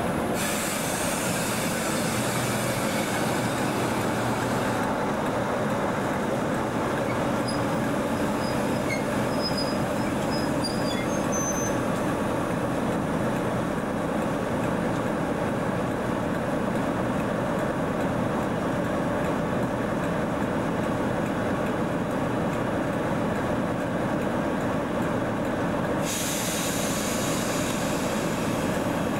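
Freight train running past at close range: steady rumble of the locomotive and wagons on the rails, with a few faint, brief wheel squeals in the first half.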